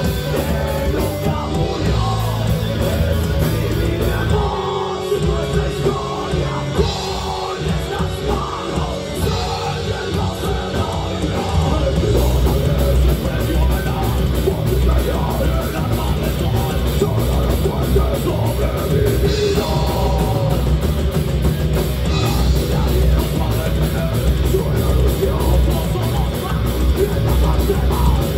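Heavy metal band playing live: distorted electric guitars, bass guitar and drum kit, with vocals at times. The band gets louder and fuller about twelve seconds in.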